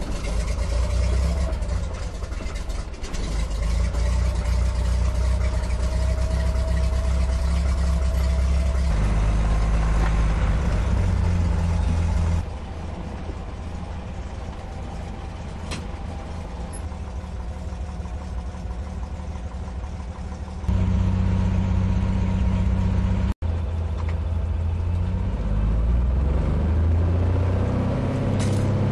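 Floatplane's piston engine and propeller running as the plane taxis on the water, in several abruptly cut stretches: steady and loud, then quieter through the middle, then loud again at takeoff power, with the engine note rising near the end as the takeoff run begins.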